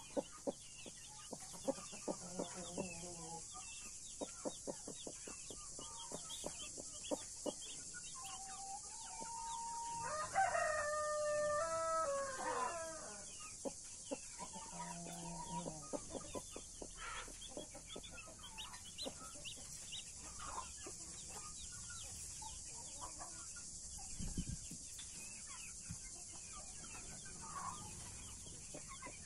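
Backyard chickens: a rooster crows once, long and loud, about ten seconds in. Hens cluck now and then, and many short high calls run throughout.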